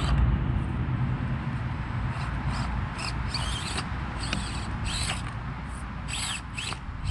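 Axial SCX24 micro rock crawler's tiny electric motor and gear drive whining in a string of short throttle bursts, the pitch rising and falling with each blip as it backs up and works over rocks.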